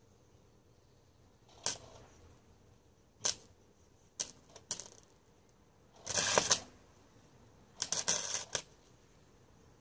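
Hand work with small metal parts and tools: a few scattered clinks and taps, then two scrapes lasting about half a second, one around the middle and one near the end.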